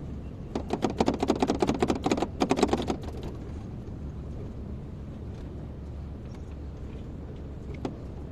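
Kobelco excavator's diesel engine running with a steady low rumble. About half a second in, a fast metallic clattering of about a dozen knocks a second starts and lasts a couple of seconds. A single click follows near the end.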